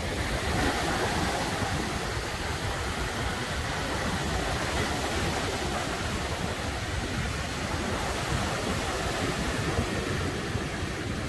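Steady wash of Lake Michigan waves breaking on the beach, mixed with wind rumbling on the microphone.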